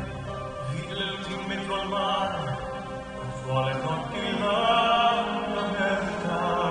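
Figure skating program music with a slow sung vocal line, held notes wavering with vibrato over sustained accompaniment.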